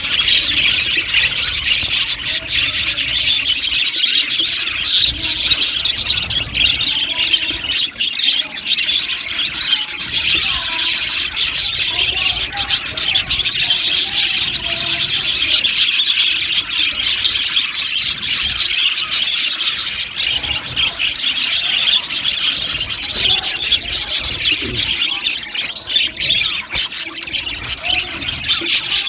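A flock of budgerigars chirping and chattering continuously, many birds at once in a dense, steady mass of rapid high chirps.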